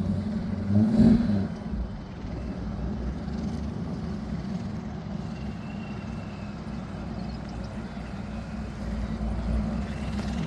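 Car engine running steadily with a low drone, briefly louder about a second in.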